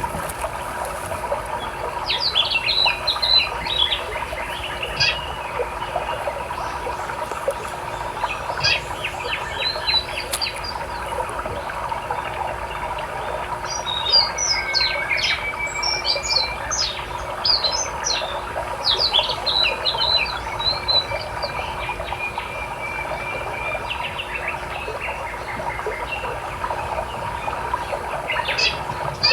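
Small birds chirping and trilling in scattered bursts, busiest through the middle, over a steady rush of river water.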